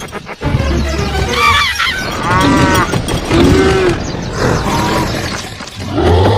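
A run of about five pitched animal-like calls with deep low rumbles beneath some of them, over background music.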